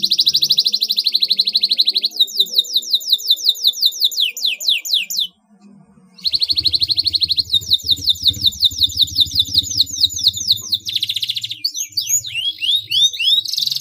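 Canary singing a long, loud song of fast rolling trills and runs of quick down-slurred notes, about eight a second. It pauses for about a second midway, then starts again with another fast trill.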